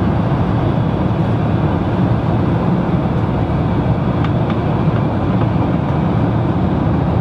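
Steady, loud rumble of an airliner's cabin in flight, the constant engine and airflow noise heard from a passenger seat, with a couple of faint ticks.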